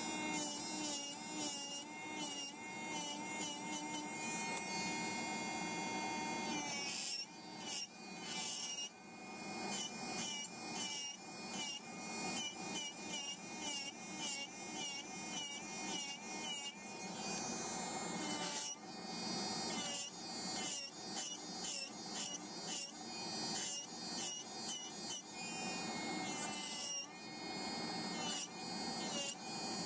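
Electric nail drill running with a rounded-top milling bit grinding gel off fingernails: a whine that wavers in pitch under scratchy grinding in short, repeated strokes.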